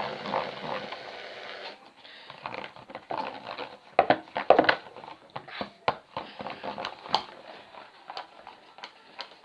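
Spoon stirring shaving cream into glue slime in a bowl: wet squishing with irregular clicks and taps of the spoon against the bowl, loudest about four to five seconds in.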